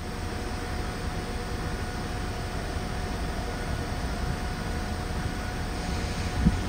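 Train running on the line close by: a steady rumble with a faint high whine, and a single thump near the end.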